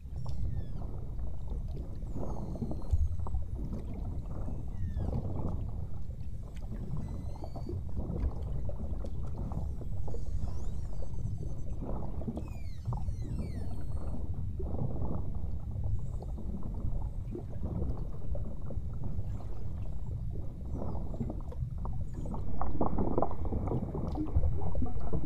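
Underwater hydrophone sound: a steady rush of churning water with irregular surges, and faint high beluga whale whistles and chirps gliding up and down above it.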